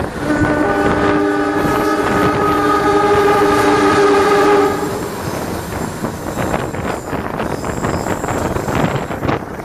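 Air horn of the CC 203-18 diesel-electric locomotive sounding one long blast of several tones at once, lasting about four and a half seconds. Then the rumble and clatter of the train running past on the rails.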